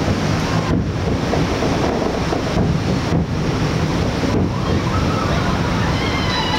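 Fireworks finale barrage: many aerial shells bursting and crackling so close together that they merge into one loud, continuous rumble.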